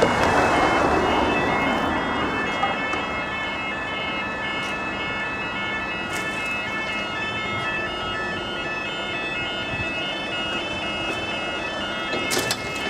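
Level crossing audible warning alarm sounding a fast, repeating electronic warble as the road traffic lights change from amber to flashing red. Road traffic noise fades over the first two seconds, and a few sharp clicks come near the end.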